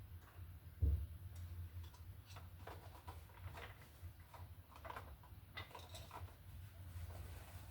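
Small plastic clicks and scrapes of an orange twist-on wire nut being worked off two 12-gauge copper wires, scattered and uneven, with one low thump about a second in.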